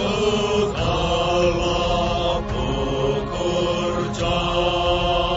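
Background music: slow, chant-like sustained tones that shift to a new pitch about once a second.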